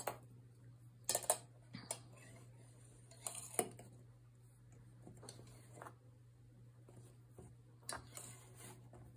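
Light, irregular clicks and taps of a metal weaving hook sliding through cotton loops and knocking against the pegs of a potholder loom, over a faint steady low hum.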